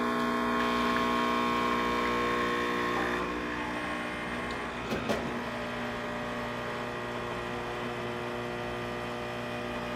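Rocket Cellini espresso machine's pump humming steadily as a shot pulls at about 9 bar brew pressure, easing slightly in level after a few seconds. A short light knock about five seconds in.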